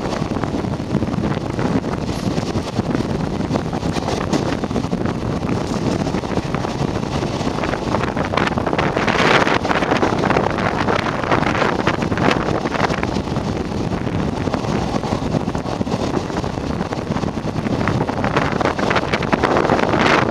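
Running noise of a moving Indian Railways passenger coach heard at an open window: wheels on rails and rushing air buffeting the microphone, a little louder around nine seconds in and again near the end.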